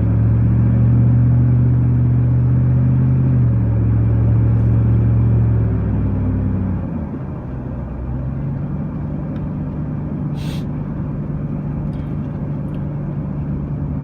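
Car engine and road noise heard inside the cabin while driving: a steady low drone that shifts pitch about three and a half seconds in, then drops and quietens around seven seconds in as the car slows, settling into a lower steady hum. A brief sharp noise sounds once about ten seconds in.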